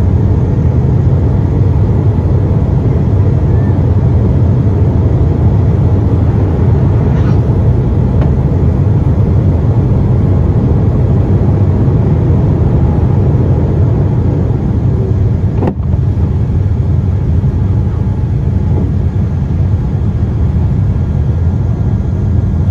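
Cabin noise of a Boeing 787-8 at takeoff power: a loud, steady rumble from its Rolls-Royce Trent 1000 engines and the rushing air as the jet rolls down the runway, lifts off and climbs. A single brief click about two-thirds of the way through.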